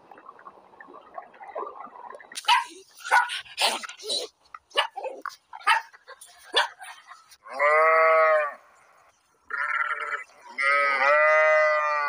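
A run of short, sharp yips and squeaks, then three long, loud, drawn-out calls from farm livestock; the last call wavers in pitch.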